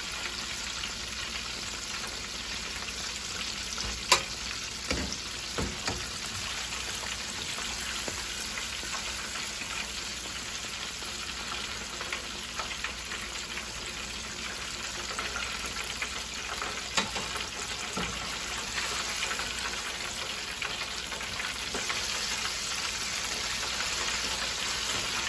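Battered fish deep-frying in a pot of hot oil: a steady crackling sizzle. A few sharp clicks of the metal fork and spatula against the pot as the fish is turned, the loudest about four seconds in.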